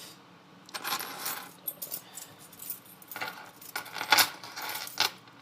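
Metal clinking and rattling as a Brinks 60 mm disc padlock and its key are handled, in irregular clicks with a sharper clink about four seconds in.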